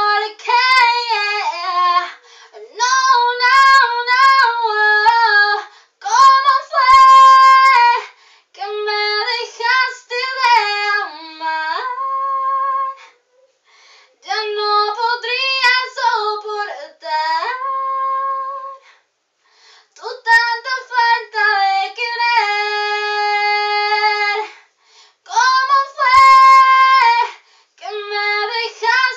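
A woman singing a Spanish ballad unaccompanied, in phrases broken by short breaths, with several long held notes.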